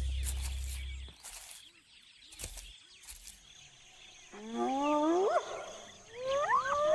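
African wild dogs calling in high whining cries that slide up and down in pitch, several voices overlapping, starting about four seconds in and building near the end. Background music fades out in the first second.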